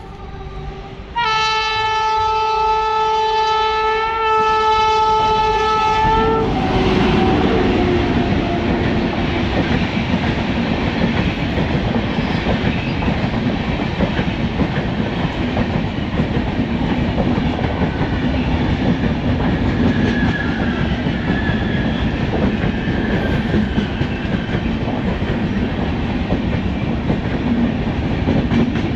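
Train horn sounded in one blast of about five seconds, its pitch dropping as the locomotive passes. After it comes the steady rumble and rattle of the passenger coaches rolling past.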